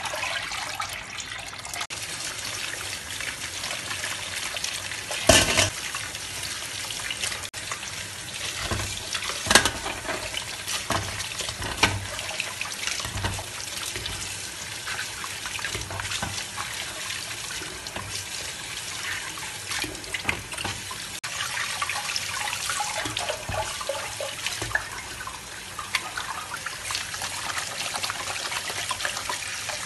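Kitchen tap running and splashing into a sink while vegetables are rubbed and rinsed by hand in a basin of water. A few sharp knocks, the loudest about five seconds in.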